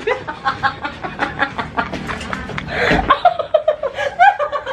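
People laughing and chattering, with a short burst of noise about three seconds in.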